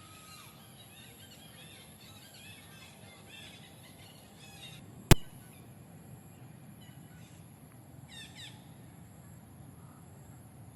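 Birds chirping in short repeated calls, with one sharp click about five seconds in that stands out as the loudest sound.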